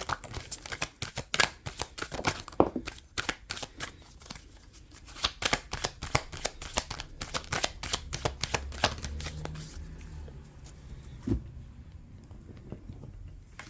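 Tarot deck being shuffled by hand: rapid papery clicks and flicks of cards for about nine seconds, then quieter handling with a single tap near the end as cards are drawn.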